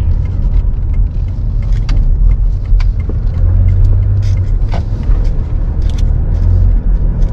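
Low rumble of a car running, heard from inside the cabin, with scattered light clicks and knocks. A deeper steady drone swells from about three seconds in and drops out about a second before the end.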